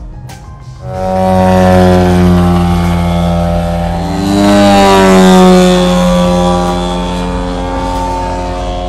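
Propeller-driven model aircraft engine running in flight. About halfway through, the pitch rises and then falls as the plane passes by.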